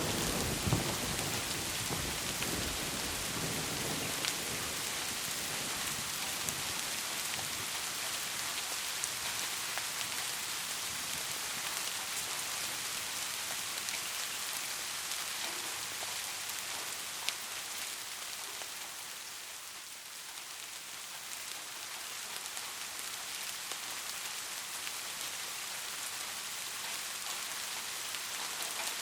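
Steady rainfall, an even hiss with scattered sharp drop ticks. A low thunder rumble dies away over the first few seconds.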